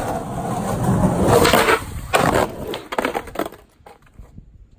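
Skateboard wheels rolling over rough asphalt, growing louder for the first second and a half, then several sharp clacks as the board hits and scrapes along a concrete curb during a trick.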